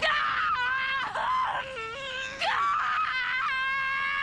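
A woman screaming at full voice: a long, high-pitched scream, a brief break about two and a half seconds in, then a second long scream.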